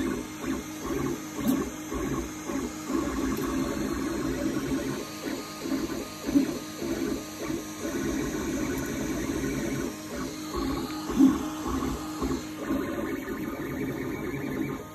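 Geeetech A20M 3D printer running, its motors buzzing at several shifting pitches in a quick pulsing pattern. A couple of sharper knocks stand out, the loudest about eleven seconds in.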